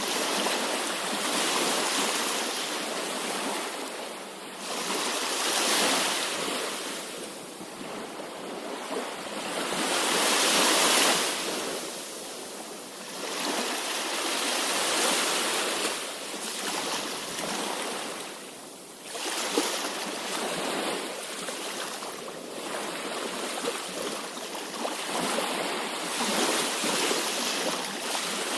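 Sea waves breaking and washing on a shore, swelling and falling back every four to six seconds, with the loudest surge about ten seconds in.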